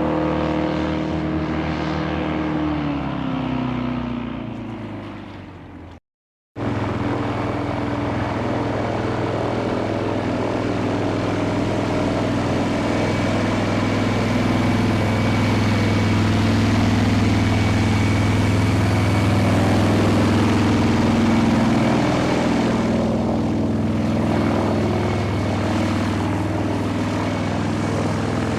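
Airboat engine and propeller: over the first few seconds the engine slows, its pitch falling, and it fades away. After a half-second gap of silence, another airboat starts in at once, running steadily and growing somewhat louder midway.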